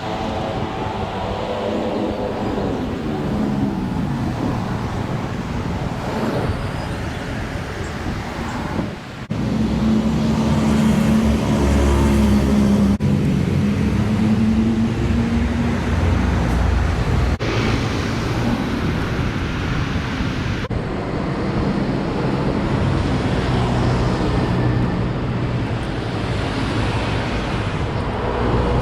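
City road traffic: a steady mix of cars and motorbikes driving past, with an engine hum that gets louder about a third of the way in. The sound changes abruptly a few times, as if the recording is cut.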